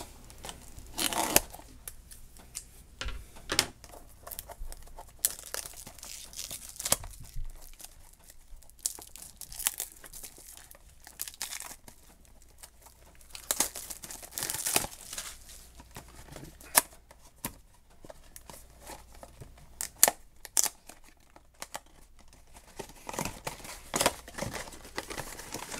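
A blind box's black foil bag being torn open and crinkled by hand, with cardboard box flaps being handled: an irregular string of rips and crackles.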